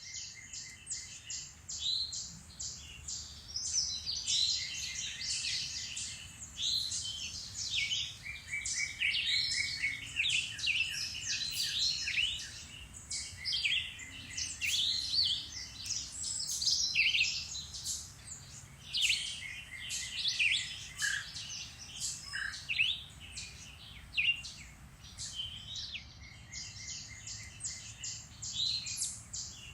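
Woodland songbirds singing and calling, several birds overlapping with chirps, rapid trills and quick sweeping notes throughout, over a faint low rumble.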